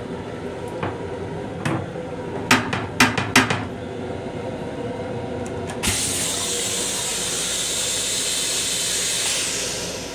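Several sharp knocks as the plastic toilet lid of an M7 commuter-train restroom is raised, then the train toilet flushing: a sudden loud rushing hiss about six seconds in that holds for around three seconds and fades near the end.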